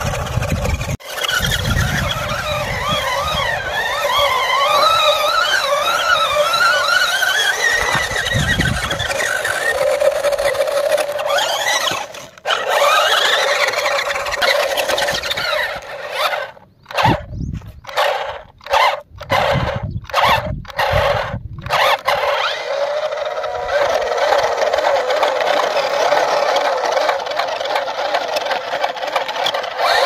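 Electric drive motors of a homemade 4x4 remote-control pickup whining under load as it drives through sand, the pitch wavering up and down with throttle and load. The motor cuts out and starts again several times in quick succession just past the middle.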